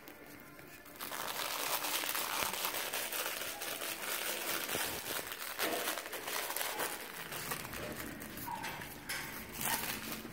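A crinkle plush toy crackling as pomsky puppies chew and tug at it, starting about a second in.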